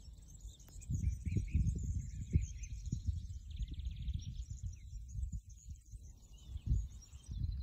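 Songbirds chirping and singing outdoors, with a fast trill about three and a half seconds in, over an uneven low rumble like wind on the microphone.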